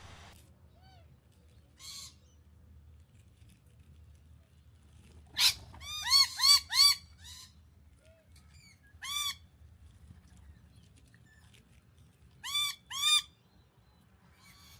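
Bird calling in short, arched, harsh notes: a quick run of about four loud notes in the middle, a single note a little later, and a pair near the end.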